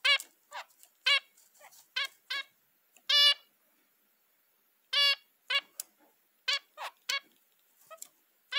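Zebra finch calling: a string of short beeping calls, about a dozen, with two longer ones around three and five seconds in.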